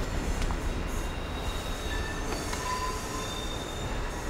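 Passenger train pulling away from the station: a low rumble with short, high wheel squeals, slowly fading as it leaves.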